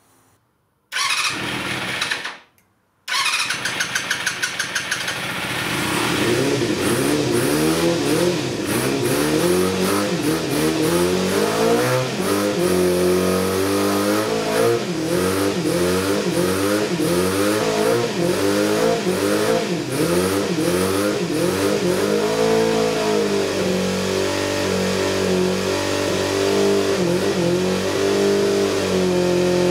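Yamaha 250cc sports-bike engine, long unused, given a short first try about a second in, then catching about three seconds in and being revved up and down repeatedly before settling to steadier running near the end. Its poor revving is put down to the carburettors, whose slides are not lifting properly.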